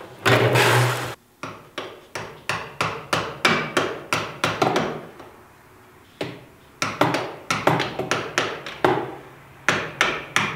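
Hammer blows driving a screwdriver through a stuck, over-tightened spin-on oil filter under a Duramax pickup, metal on metal at about three strikes a second, in runs with short pauses. Just before the blows there is a brief rumble of a creeper rolling on the concrete floor.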